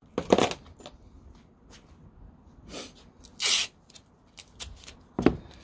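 Handling noises from masking up brake calipers with masking tape: scattered clicks and rustles, a brief loud rasp about three and a half seconds in, and a sharp click near the end.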